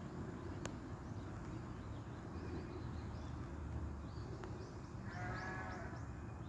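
A single bleat lasting about a second, about five seconds in, over a steady low rumble and faint high bird chirps.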